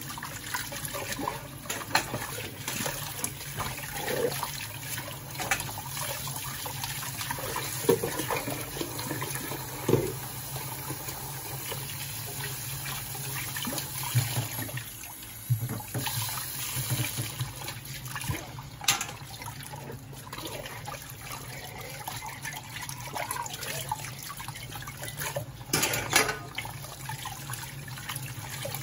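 Kitchen tap running into a stainless steel sink while dishes are washed by hand: a steady stream of water with scattered clinks and knocks of cups, spoons and a pan.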